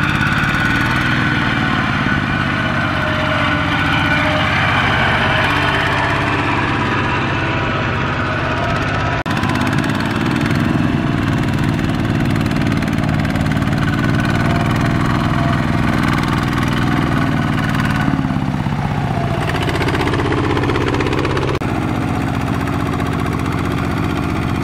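Single-cylinder diesel engine of a two-wheel walking tractor running steadily under load as it pulls a loaded trailer through mud. The engine's sound changes abruptly about nine seconds in and again near the end.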